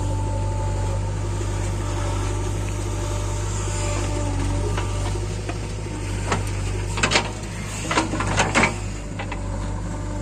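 Heavy diesel machinery engine running steadily at a working note, with a cluster of sharp knocks about seven to nine seconds in.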